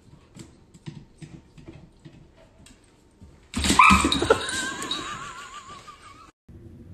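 Dog's claws clicking lightly on a hardwood floor as it walks. About three and a half seconds in, a sudden loud sound with a wavering, whistle-like tone starts, fades over nearly three seconds and cuts off abruptly.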